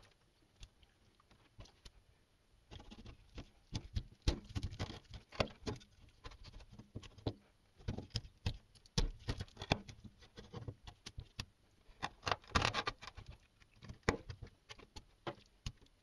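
Kitchen knife cutting crucian carp fillets into portions on a plastic cutting board: irregular clicks and knocks as the blade goes through skin and bone and strikes the board, starting a couple of seconds in.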